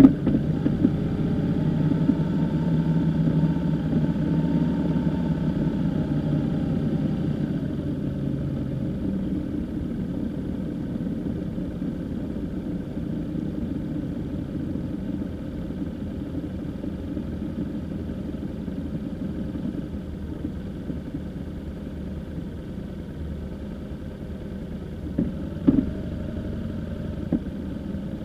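Motorcycle engine running at low road speed. The engine note is clear at first, then grows quieter and plainer as the bike slows and rolls along. Two or three brief knocks come near the end.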